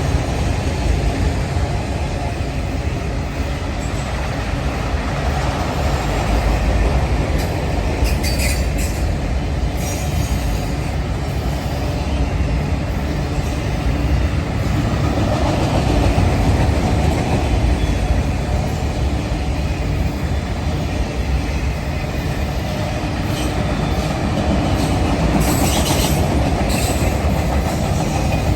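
Norfolk Southern freight train's cars rolling past, a loud steady rumble of wheels on rail with clacking. Brief high squeals come about a third of the way in and again near the end.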